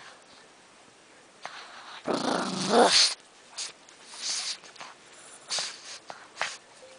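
A pug growling in play at a stuffed toy for about a second, with short snorting breaths before and after.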